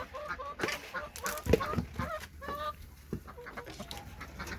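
Hens clucking: a run of short calls, with a few sharp knocks among them.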